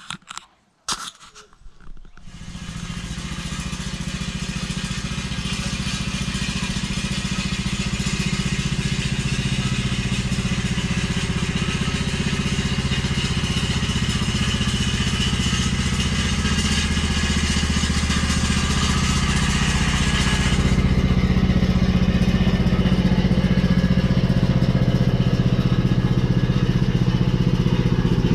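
Riding lawn tractor engine running steadily, growing louder over the first few seconds as it comes closer. A higher hiss above the engine drops away about two-thirds of the way through while the engine keeps running.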